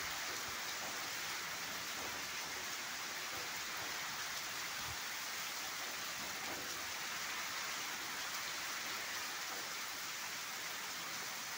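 Heavy rain pouring down steadily onto the ground and trees.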